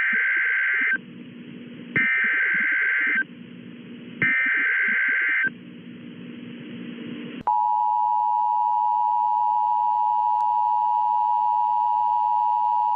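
Emergency Alert System alert tones: three buzzing SAME header data bursts, each about a second long and two seconds apart, then about seven and a half seconds in the steady, piercing two-tone EAS attention signal, which holds unbroken.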